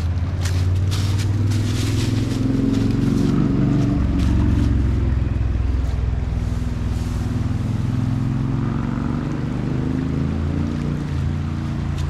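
A motor engine running steadily, its low pitch shifting slightly a few times, with a few knocks and clatters in the first three seconds.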